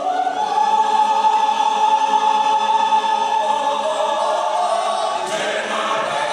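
Mixed church choir singing loudly in several voice parts, holding one long chord and moving to another about five seconds in.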